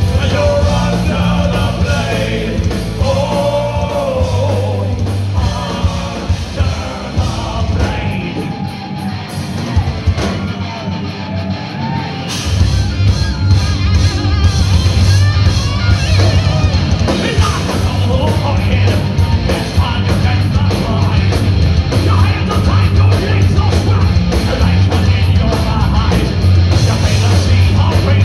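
Heavy metal band playing live: electric guitars, bass guitar and drums under a singer's shouted vocals. About a third of the way in, the heavy low end drops back for a few seconds, then the full band comes back in.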